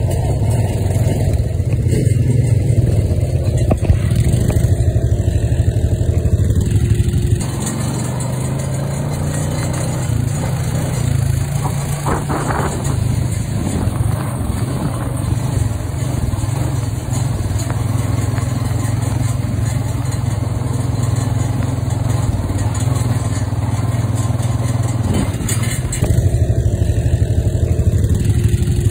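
Off-road vehicle engines running steadily while driving along a dirt trail, a constant low hum with engine and road noise. The sound changes character about seven seconds in and again near the end.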